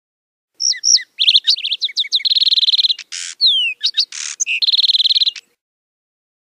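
Lark sparrow singing one song about five seconds long: a jumble of clear slurred notes, fast trills, a falling whistle and harsh buzzes, starting about half a second in.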